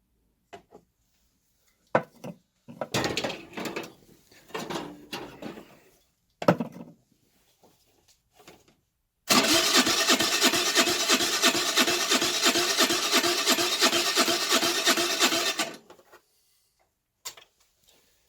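A few clicks and rubbing handling noises, then about six seconds of the 2008 Baotian Tanco 50cc four-stroke scooter engine cranking over with an even rhythmic pulse, stopping suddenly without ever firing. The engine is flooded, fouling its spark plug wet, and the owner blames a fouled-up carburettor.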